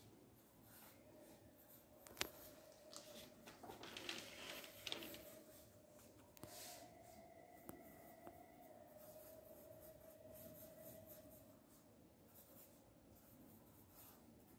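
Faint scratching of a pen writing on a book's paper page, in short irregular strokes, with a sharp tap about two seconds in and a faint steady hum underneath.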